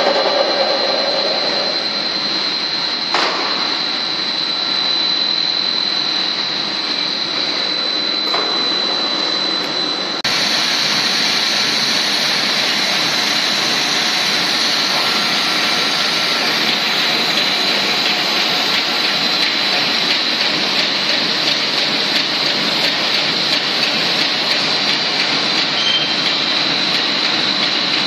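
PVC trunking extrusion line running: a steady machine hiss with a constant high-pitched whine. There is a short knock about three seconds in, and the noise steps up suddenly about ten seconds in.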